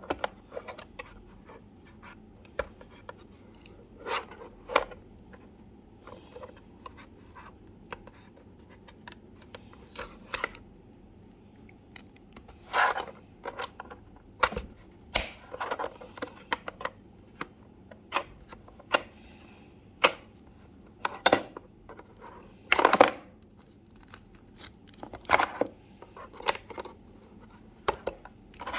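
Hairdryer packaging being opened and handled: scattered short snips, scrapes and rustles of cardboard and wrapping, at irregular intervals.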